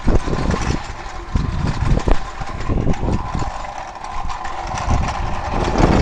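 A vehicle engine idling steadily, with irregular low thumps and rustling of a body-worn camera as its wearer walks.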